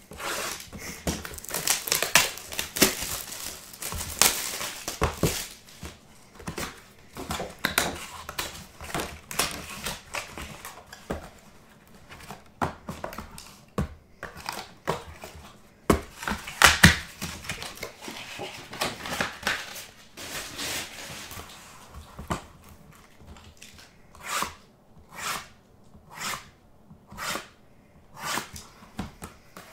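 Crinkling and tearing of plastic wrap and cardboard as a sealed Bowman Sterling baseball card box is unwrapped and its flaps opened. Near the end, a run of short, evenly spaced rustles, about one every second, as the card packs are slid out of the box.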